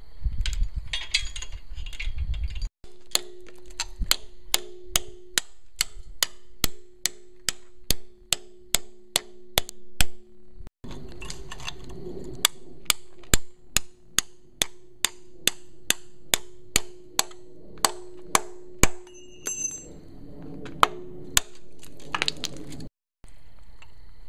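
Hammer blows driving a chisel into the rusted cast-iron intake/exhaust manifold of a Mercruiser 3.0 engine: sharp metallic strikes at about two a second with a ringing tone, in two long runs.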